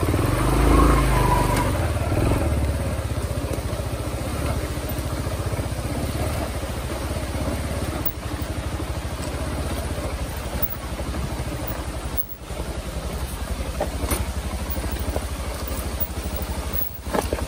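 Dirt bike engine running as it is ridden, a steady, even pulsing that dips briefly about twelve seconds in.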